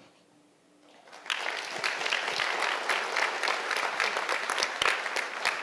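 Audience applauding. The clapping starts about a second in, after a short hush.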